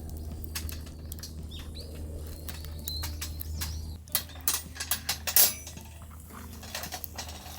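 Scattered clicks and light taps, louder for a moment about two-thirds of the way through, with a few short bird chirps.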